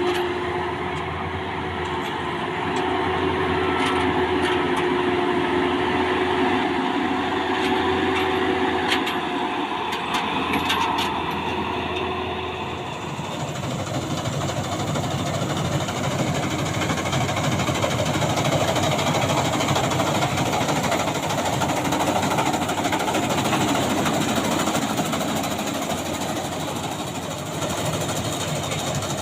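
Maxxi Bimo 102 combine harvester running steadily, its engine and machinery making a continuous drone with a steady whine over it. About halfway through the whine stops and the sound turns into a broader, harsher rushing noise.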